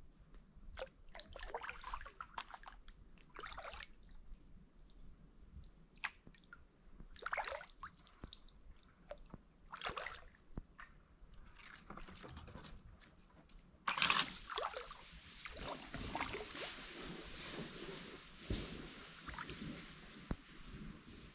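Kayak paddle strokes dipping into still swamp water, with water dripping and trickling off the blades every second or two. About two-thirds of the way in, a sudden louder splash sets in and the splashing turns steadier.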